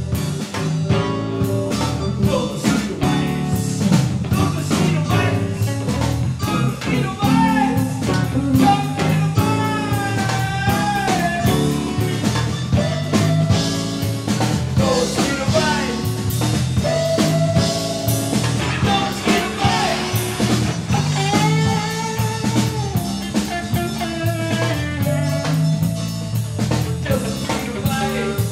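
Live band jamming: drum kit, electric guitars and a male singer's voice into a microphone, playing continuously.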